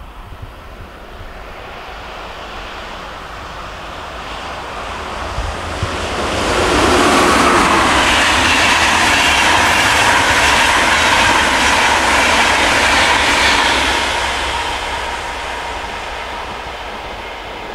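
Locomotive-hauled passenger train approaching, passing close at speed and then fading away: the rush of wheels on rail grows, is loudest for about seven seconds in the middle, then dies down.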